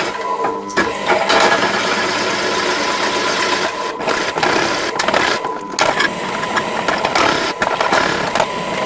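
Drill press running and cutting a hole: a steady motor whine under a dense grinding rasp that eases off briefly a few times.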